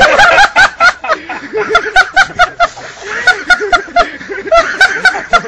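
Loud, hearty laughter close to the microphone: quick repeated "ha" pulses about four or five a second, in several runs with short breaths between.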